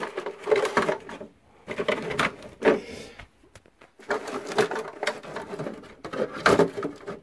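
Hard plastic RC monster-truck body shell being handled and pushed down onto the chassis: irregular knocks, clicks and scraping plastic in a string of short bursts.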